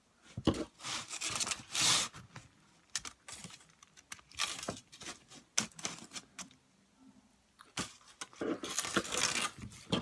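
Close-up eating sounds: bites into a soft tortilla burrito and wet chewing in irregular bursts, with small mouth clicks between them.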